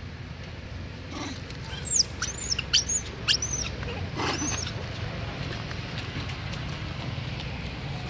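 Young macaque crying in distress: five short, very high-pitched squeals in quick succession from about two seconds in, each rising then falling in pitch.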